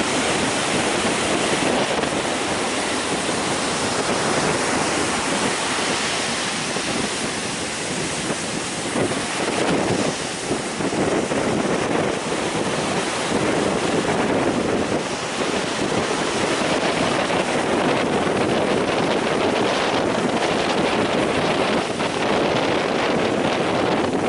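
Heavy sea surf breaking, with strong wind buffeting the microphone: a steady, unbroken rush of noise.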